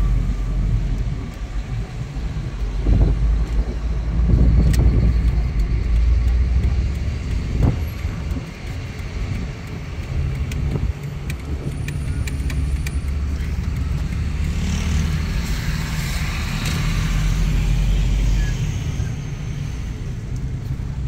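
Engine and road noise of an RV heard from inside its cab while driving slowly through town: a steady low rumble that swells and eases, with a short run of light clicks about twelve seconds in.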